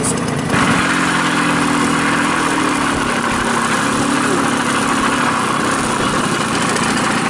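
Babetta moped's 50 cc single-cylinder two-stroke engine running while riding along a rough forest dirt track, its note holding fairly steady with small shifts in pitch. It starts about half a second in.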